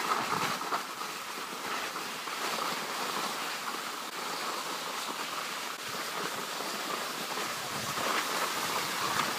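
Steady rushing hiss of skiing downhill: skis sliding over packed snow, with wind buffeting the microphone.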